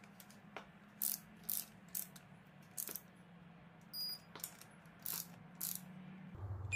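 Ratchet head of a digital torque wrench clicking in short bursts as it is swung back and forth while cylinder head bolts are tightened to the first-stage 50 Nm, with a brief high beep about four seconds in. A faint steady low hum runs underneath.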